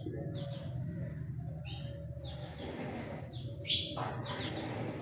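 Nestling birds begging in the nest: a run of short, high chirps, thickest and loudest about three and a half seconds in, over a steady low hum.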